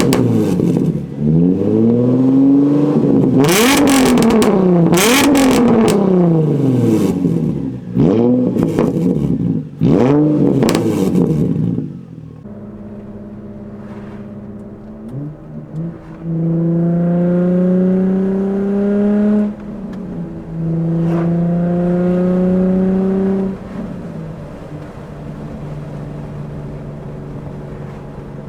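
2004 Infiniti G35's 3.5-litre VQ35DE V6 through a straight-piped exhaust with the muffler deleted. For about the first twelve seconds it is revved hard again and again, the pitch swinging up and down, with sharp cracks as the throttle closes; then it makes two shorter pulls with rising pitch, each ending in a gear change, before settling to a steady low drone.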